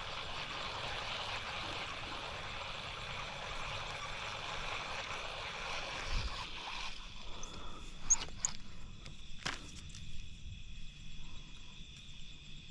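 Outdoor ambience: a steady rushing noise that stops about seven seconds in, leaving a steady high insect drone and a few sharp clicks.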